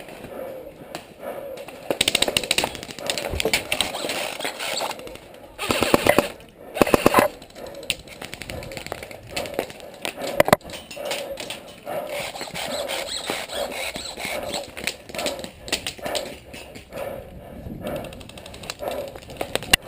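Airsoft guns firing in rapid full-auto bursts with a fast mechanical rattle, the loudest bursts about two seconds in and twice more around six and seven seconds, with scattered single shots in between. Indistinct voices sit underneath.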